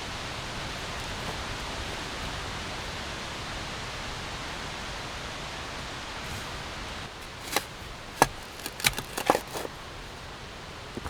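Steady rushing noise of strong wind. In the second half, a handful of sharp clicks and knocks come over about two seconds.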